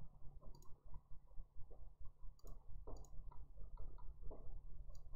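A few light clicks at irregular intervals, over a low steady hum.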